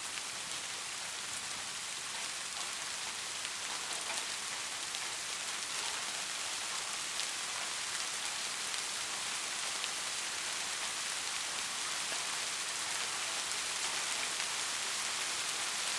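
Heavy rain falling steadily, a dense hiss with fine drop patter, as of rain on a roof.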